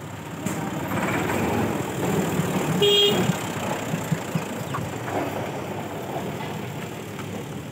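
Street traffic noise with a brief vehicle horn toot about three seconds in, followed by a few short knocks.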